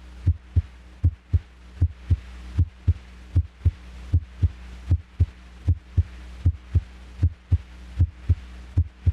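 Normal heart sounds heard through a stethoscope: a steady lub-dub, the first and second heart sounds (S1 and S2) in even pairs at about 75 beats a minute, over a faint low hum.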